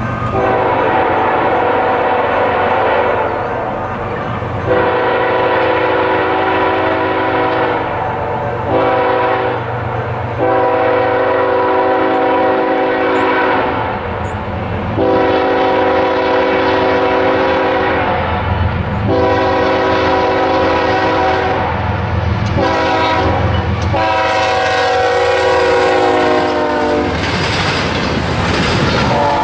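CSX freight locomotive's chime air horn blowing the grade-crossing signal of long, long, short, long twice over, its pitch dropping on the last blast as the locomotive passes. Then comes the rumble and clatter of double-stack intermodal cars rolling by.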